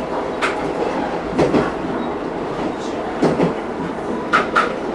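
Diesel railcar running along jointed track: a steady running rumble with sharp wheel clicks over the rail joints, including a quick double click near the end.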